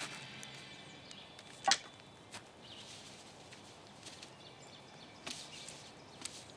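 Faint background hiss with a few scattered sharp clicks or snaps, the loudest a little under two seconds in, as music fades out at the start.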